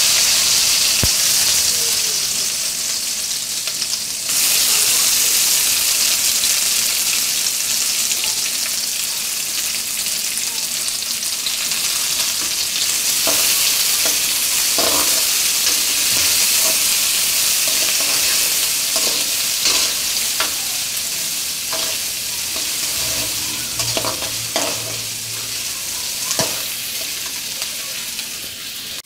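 Sliced onions sizzling in hot oil in a metal kadai: a loud, steady sizzle that eases slightly toward the end. From about halfway through, a metal spatula scrapes and clinks against the pan now and then as the onions are stirred.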